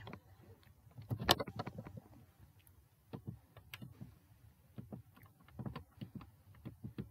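Faint, irregular clicks and taps, like keys, a mouse or a stylus being worked at a computer or tablet, with a small cluster about a second in.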